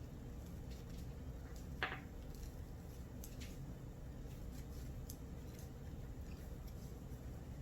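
Knitting needles clicking faintly as stitches are knitted, with one sharper click about two seconds in, over a low steady hum.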